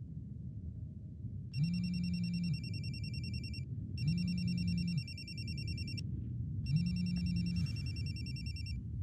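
Mobile phone ringing with a fast, high warbling trill, three rings of about two seconds each, with a low buzz at the start of each ring.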